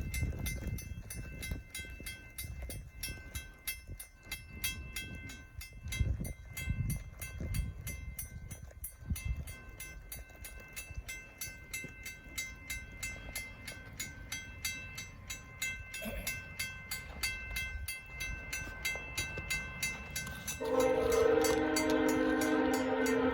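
A railway crossing bell ringing steadily with evenly repeated strikes. Near the end a GE P42DC diesel locomotive's multi-tone air horn sounds a long held chord.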